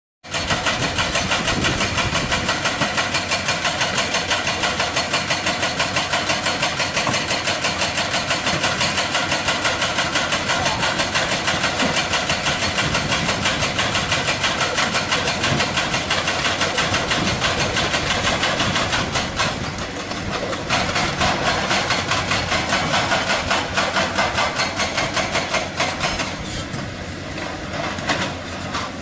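Excavator's hydraulic breaker hammering rock: a rapid, even stream of sharp blows over the running diesel engine, easing off briefly twice in the later part.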